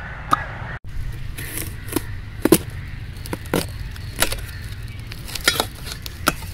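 A knife cutting through a watermelon, the rind giving scattered sharp cracks and clicks, about six in all, over a steady low rumble.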